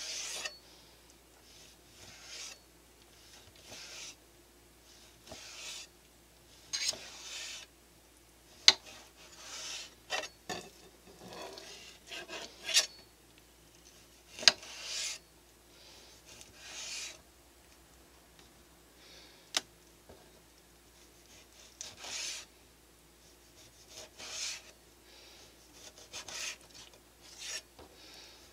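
Kitchen knife slicing through a block of raw yellowfin tuna for sashimi: a short rasping stroke every second or two, and now and then a sharp tap of the blade on the plastic cutting board, the loudest about nine and fourteen seconds in.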